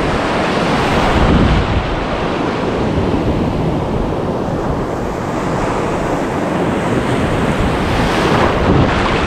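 Surf breaking and washing close around a wader, with wind buffeting the microphone; the wash swells about a second and a half in and again near the end.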